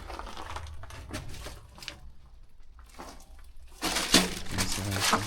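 Footsteps crunching and scraping over litter and broken debris, with an irregular run of crackles that grows loudest near the end.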